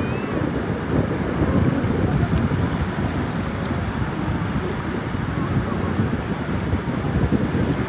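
Strong sea wind buffeting the microphone, a steady low rumble, with ocean surf under it.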